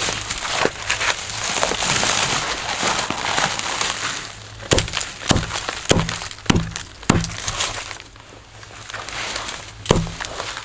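Hatchet chopping through the ends of a tied bundle of dry twigs against a wooden stump: a run of about six sharp chops, roughly two a second, from about halfway in, and one more near the end. Before the chops the twigs rustle and scrape as the bundle is handled.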